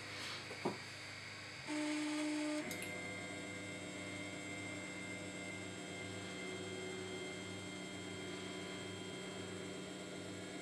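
Monoprice Select Mini 3D printer running. There is a short click under a second in and a louder steady motor tone for about a second around the two-second mark, then the steady whine and hum of its motors and fan as it prints, with a faint regular pulsing.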